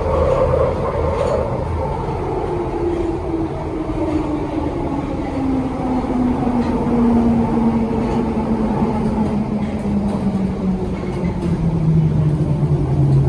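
1972 Stock Bakerloo line Underground train running, a whine from its traction motors falling steadily in pitch as the train slows, over a constant rumble of wheels on rail.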